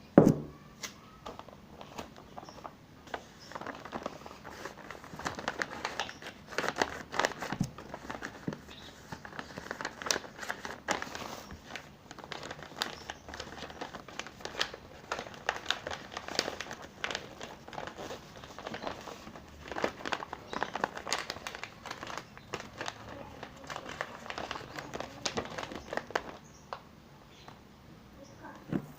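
Packaging being crumpled and handled: irregular crinkling and crackling with many sharp little snaps.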